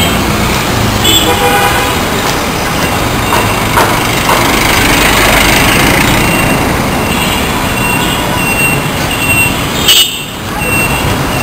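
Steady, loud noise of busy street traffic from vehicles passing close by, with a short horn toot about a second in and a sharp knock near the end.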